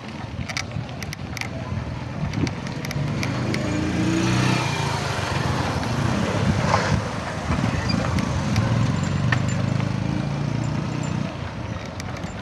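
A motor vehicle's engine passes close by. It grows louder over the first few seconds, stays loud through the middle, and fades near the end.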